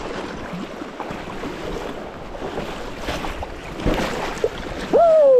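Shallow river water rushing and splashing close by as a brown trout is brought to the landing net, with a sharp knock about four seconds in. Near the end a man lets out a loud, excited shout.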